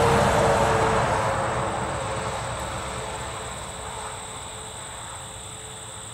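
Rumble of a passing vehicle, loudest at the start and fading steadily away over the next few seconds.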